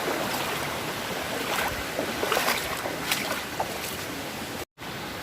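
Rushing water of a shallow river, with a few splashes of someone wading through it about two to three seconds in. The sound cuts out for an instant near the end.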